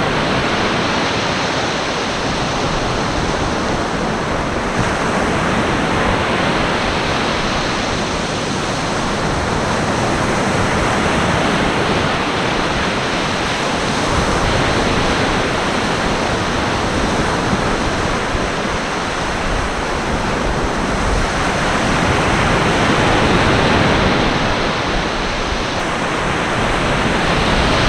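Ocean surf breaking and washing up the beach: a dense, steady rush of noise that swells and eases slowly every several seconds.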